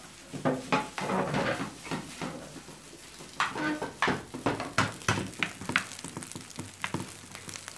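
Kimchi fried rice being stir-fried in a nonstick frying pan with a wooden spatula: irregular scrapes and taps of the spatula against the pan over a light sizzle.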